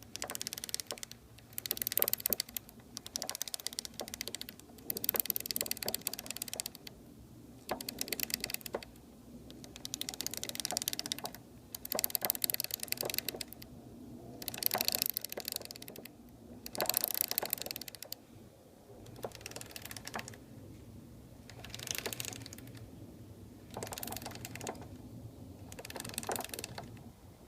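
Honda 919 inline-four motorcycle engine running with a rapid metallic clattering knock that comes in bursts of a second or two, about a dozen times, over a steady low hum.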